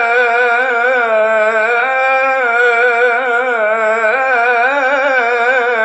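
A man sings an Arabic devotional ibtihal, drawing out one long melismatic phrase whose pitch wavers and turns in ornaments without a break.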